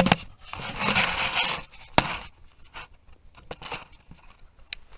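Handling noise as a camera is being set in place: a knock, a scraping rub for about a second and a half, a second sharp knock about two seconds in, then a few light clicks.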